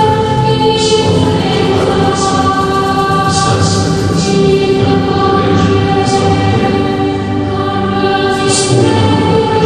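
Slow choral music: voices holding long sustained notes, moving to a new chord every second or two.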